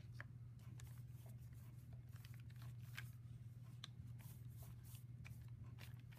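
Faint scratchy strokes and light clicks of a paintbrush dragging thick paint across a sketchbook page, over a low steady hum.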